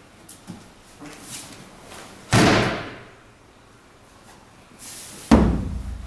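Two loud slams of a body hitting a padded martial-arts mat in breakfalls: the first about two seconds in as the partner is thrown down, the second about three seconds later. Softer rustles and light knocks come before the first.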